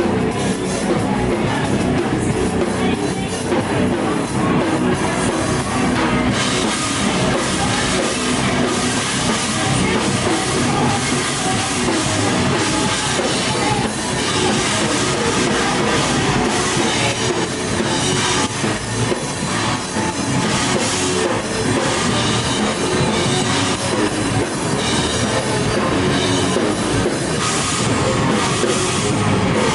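A live heavy rock band playing loudly, with distorted electric guitar and a full drum kit. The cymbals come in brighter about six seconds in.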